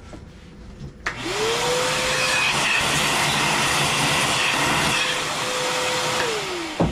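A vacuum cleaner switched on about a second in: its motor spins up with a rising whine, runs steadily with a loud rushing of air, then winds down near the end and is switched off with a click.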